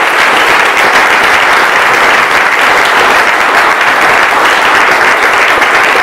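Audience applauding at the end of a talk: steady, dense clapping from a full room.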